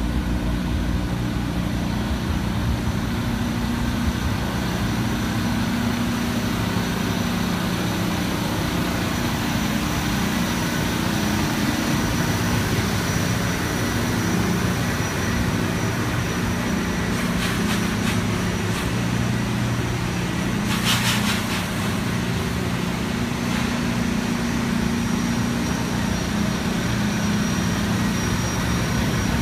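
Metro-North electric commuter train at the platform, with a steady low hum from its motors and onboard equipment. A brief hiss comes about two-thirds of the way through.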